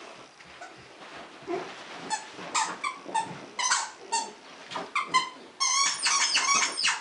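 Dogs yipping and squealing in rough play: short high-pitched yips from about two seconds in, then a quick run of squeals near the end.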